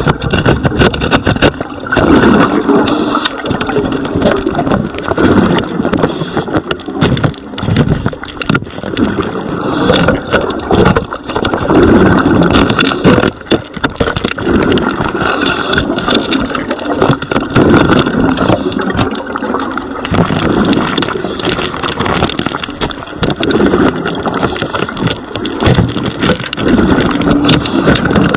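Underwater sound of a diver breathing through a scuba regulator: a short hiss about every three seconds on each inhale and rumbling, gurgling exhaust bubbles in between.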